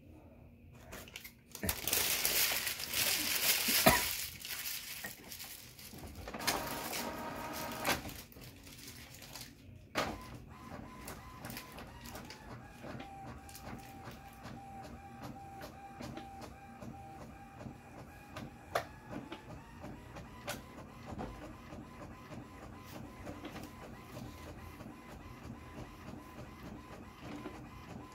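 HP Envy all-in-one inkjet printer making a copy: a loud burst of mechanism noise, then a whining motor, a sharp click, and a long quieter stretch of steady whirring with regular small clicks as the page is printed and fed out.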